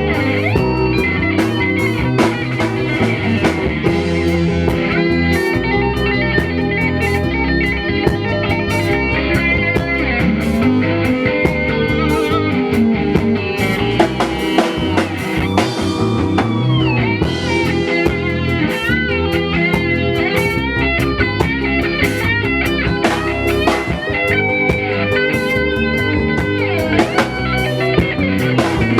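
Live band playing an instrumental: guitar leading over a drum kit, with notes bent up and down in the middle, as part of a sound check.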